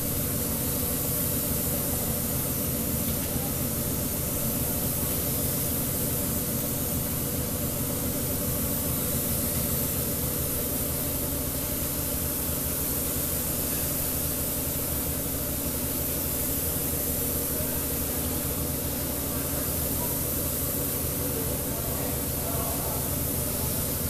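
Gravity-feed paint spray gun on a compressed-air hose, spraying paint onto a car's door panel: a continuous, even hiss of air and atomised paint over a steady low hum.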